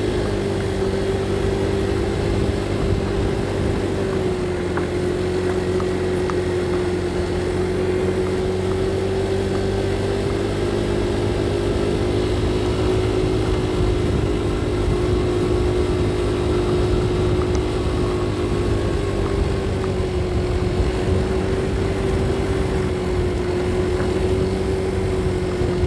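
Motorcycle engine running at a steady cruising speed, with road and wind noise, recorded through a helmet-mounted microphone; the engine's pitch holds almost level throughout.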